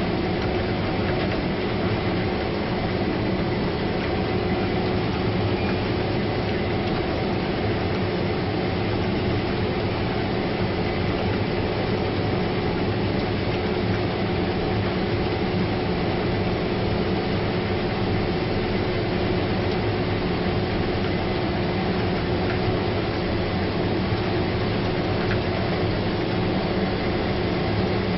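Combine harvester running steadily at working speed: a constant mechanical drone with a steady whine held on several fixed tones.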